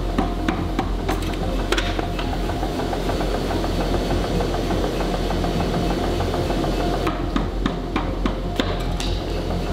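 Hammer blows on steel while a knife blade is forged, over a steady low drone of shop equipment. The strikes are scattered, with a run of several about half a second apart near the end.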